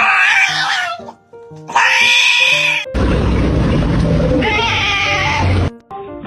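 A cat giving loud, drawn-out yowls, twice in the first few seconds, then a harsher, noisier stretch with another cry that cuts off suddenly near the end, over light background music.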